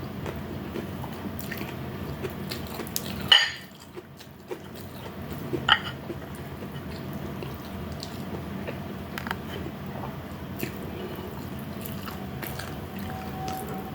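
Close-miked eating sounds: wet chewing and biting with scattered small clicks, and a sharper click about three seconds in.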